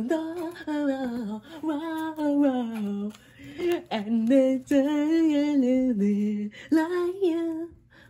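One person singing a tune to himself in mumbled, wordless sounds, holding wavering notes, and breaking off shortly before the end.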